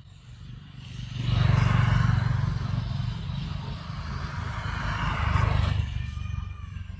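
A motor vehicle passing by: engine and tyre noise swells about a second in, stays loud for several seconds and fades away near the end.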